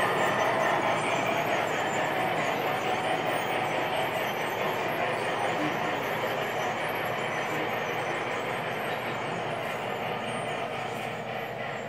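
2-rail O scale model train running on the track, a steady rolling rumble that slowly fades.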